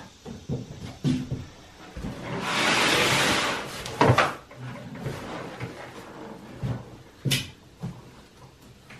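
A heavy roll of leather in brown kraft paper wrapping is handled on a wooden workbench. The paper rustles for about a second while the roll is shifted across the table, then come two sharp thumps about three seconds apart, with small knocks and paper crinkles between them.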